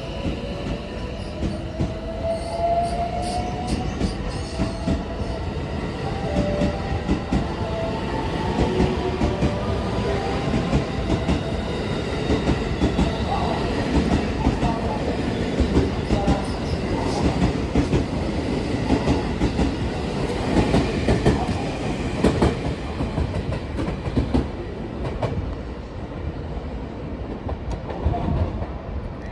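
A JR West 223 series electric multiple unit pulling out of the station: its traction motors whine, rising in pitch as it accelerates over the first several seconds, then its wheels click and clatter over the rail joints and points, fading near the end as it leaves.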